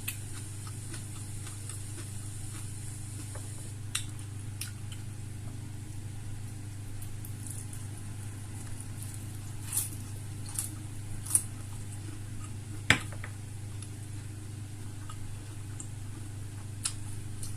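Person eating close to the microphone: scattered chewing and mouth clicks, with a few louder clicks or taps, the sharpest about 13 seconds in, over a steady low hum.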